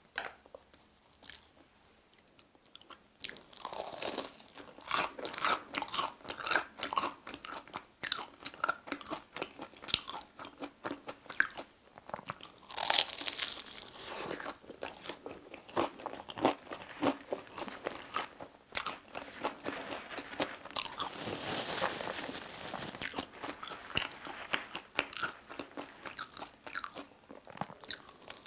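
Crunchy bites and chewing of a fried mozzarella hot dog coated in potato cubes, heard close up through a clip-on microphone. After about three quiet seconds come many sharp crackles, in clusters with short pauses between.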